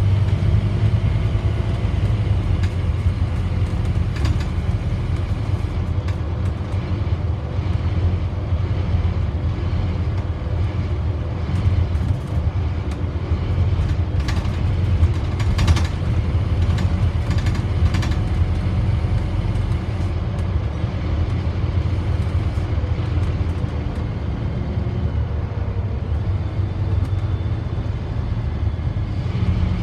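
Interior noise of a Scania OmniDekka double-decker bus, heard on the upper deck: a steady low engine and road rumble, broken by a few brief knocks and rattles.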